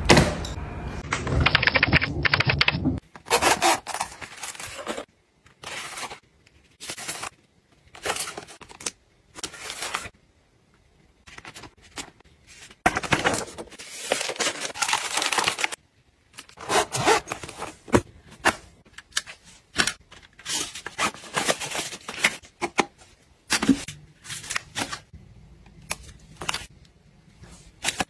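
Packing and handling noises: plastic sleeves, papers and small packets rustling, and items being scraped and set down, in short separate bursts with gaps between. A continuous rumble fills the first three seconds, then stops.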